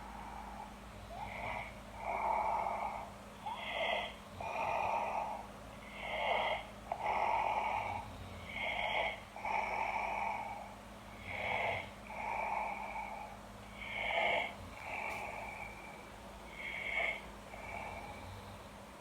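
A man snoring in his sleep, a snore with each breath, about one every two seconds.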